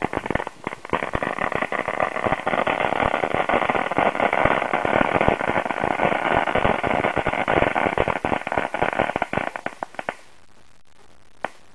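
Crackling dynamite firework going off: a dense, rapid crackle of many small pops lasting about ten seconds and cutting off suddenly, with one last lone pop near the end.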